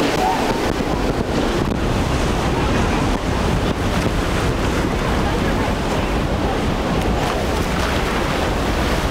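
Steady wind noise on the microphone over rough water and churning boat wakes in an inlet.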